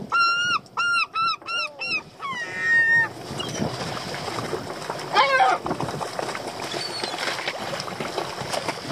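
Gull calling: a run of loud, arched cries that come faster and faster over the first two seconds, then a falling string of shorter notes, and one more cry a little past halfway. Under it, a steady hiss of wind and sea with light clicks.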